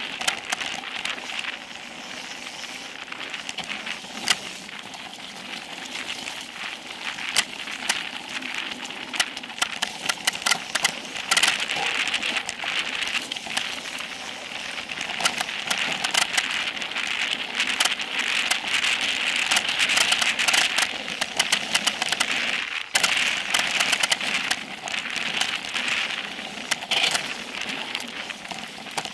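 Specialized Epic Pro mountain bike descending a dirt singletrack: a continuous crackling hiss of knobby tyres over loose dirt and gravel, with frequent sharp clicks and rattles from the bike and from stones.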